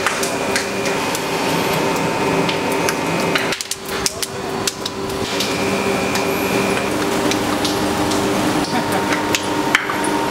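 Rubber-processing machinery with a two-roll mill runs with a steady hum of several held tones. Scattered sharp metallic clicks and knocks sound throughout. The sound drops briefly about three and a half seconds in.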